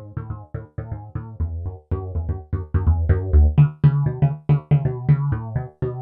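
Novation MiniNova synthesizer playing a punchy, bass-heavy patch in a fast run of short staccato notes, about five a second. The low line steps up in pitch about halfway through.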